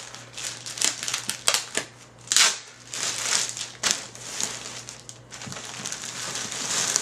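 Bubble wrap being handled and pulled off a packed typewriter case, crinkling and crackling with scattered sharp clicks, the loudest crackle a little over two seconds in.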